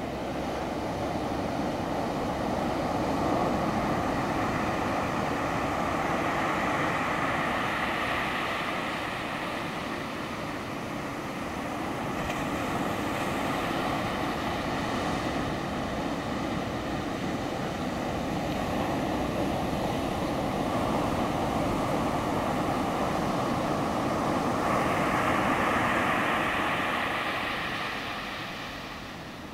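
Ocean surf breaking and white water foaming and washing among rocks at the shoreline: a continuous rush that swells and eases with each wave, loudest a few seconds in and again near the end.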